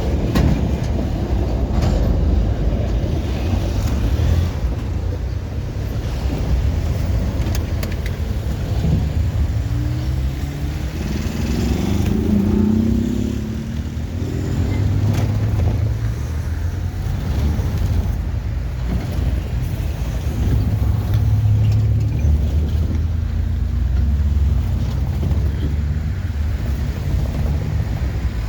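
Deep, steady rumble of a passing train, with a pitched engine note that rises and falls for a few seconds around the middle.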